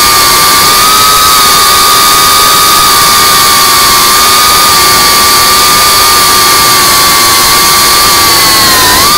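FPV racing quadcopter's brushless motors and propellers whining steadily in fast cruise, over a constant hiss. Right at the end the pitch dips and then starts to rise as the throttle goes up.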